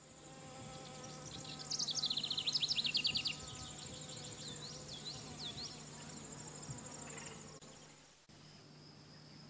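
Insects buzzing and droning steadily, with a steady high whine over a low hum. About two seconds in comes a louder, rapid chirping trill lasting about a second and a half, followed by a few single swooping chirps; near the end a steady high insect trill takes over.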